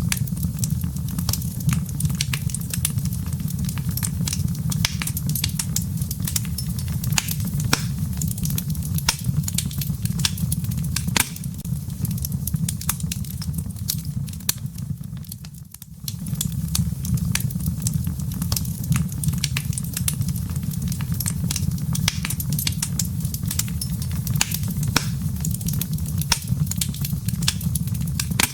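Wood fire burning in a fireplace: a steady low rumble of flames with frequent sharp, irregular crackles and pops of the burning firewood. The sound briefly drops off about sixteen seconds in, then carries on.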